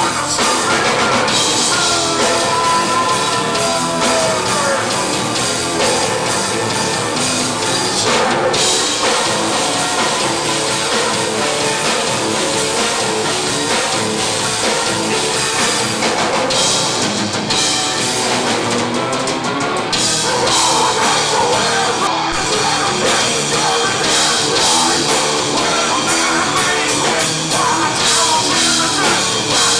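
Live metal band playing loud, with a drum kit and guitars.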